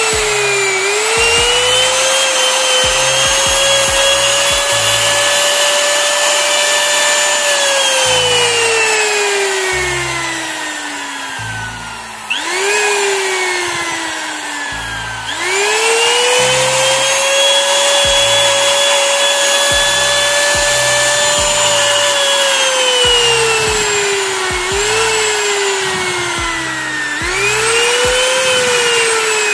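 Electric trimmer (compact wood router) motor running with a high whine that keeps cutting out, coasting down in pitch and spinning back up, several times over. This is its fault: the motor dies and stutters on its own while switched on.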